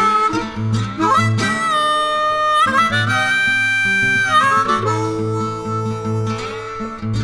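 Background music: an acoustic guitar picks over a steady bass pulse, and a harmonica plays long held notes through the middle.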